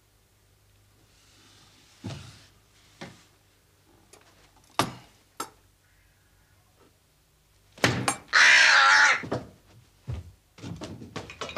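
A few separate sharp knocks, then a loud rasping scrape lasting over a second, as an iron sword is lifted down from a wall rack.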